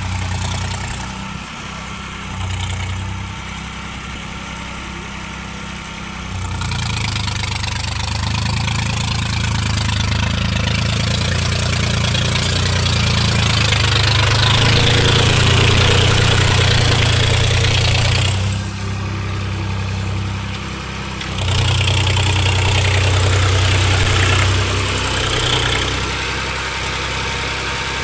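Swaraj 834 XM tractor's three-cylinder diesel engine working through deep paddy mud, picking up revs about six seconds in, easing off briefly past the middle, then pulling hard again. A hiss of churned mud and water runs under it.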